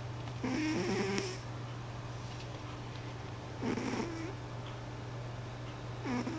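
A sleeping pet snoring: three short rasping snores about three seconds apart, over a steady low hum.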